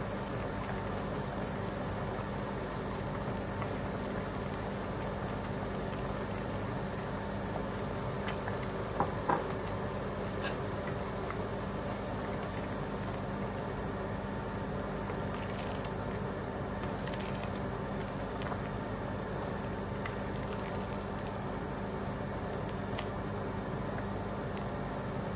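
Pot of chicken soup boiling on the stove: a steady bubbling, with a couple of faint clicks about nine and ten seconds in.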